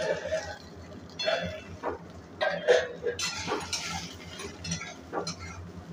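A metal spatula scraping and clinking against an aluminium kadai as bitter gourd slices are stirred while they fry. It comes as irregular knocks and scrapes, and a steel plate used as a lid is taken off the pan.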